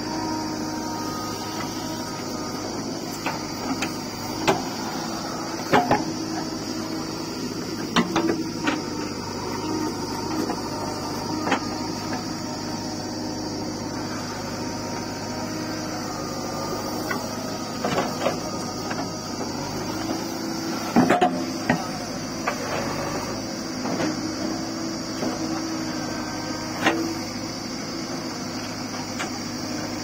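JCB 3DX backhoe loader's diesel engine running steadily while the backhoe digs and dumps soil, with scattered sharp clanks and knocks from the bucket and the earth it moves.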